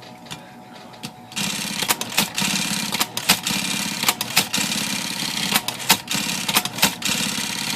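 Brother electric typewriter starting up about a second and a half in, its motor humming steadily under a run of sharp, irregular typing strikes. It is being test-typed to check the carriage return, which works properly now that worn bumpers have been replaced.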